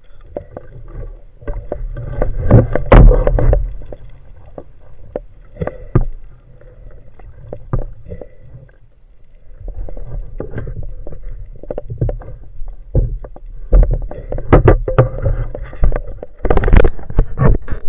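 Muffled, rumbling water noise with many irregular knocks and clicks, heaviest about two to three seconds in and again in the last few seconds.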